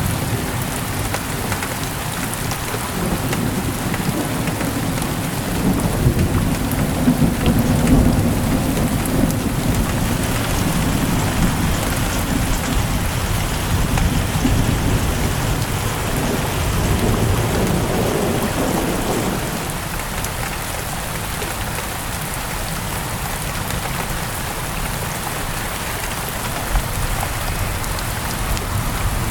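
Steady rain falling with rolling thunder rumbling underneath; the thunder dies away about two-thirds of the way through, leaving only the rain.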